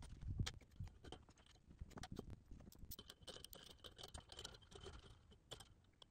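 Near silence with faint scattered clicks and light taps. A faint high steady tone runs for about two seconds in the middle.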